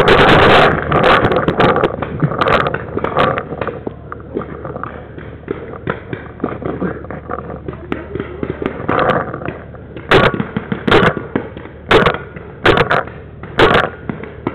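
Paintball marker shots: sharp single pops, about one a second in the last few seconds, after a stretch of rough, loud handling and movement noise at the start.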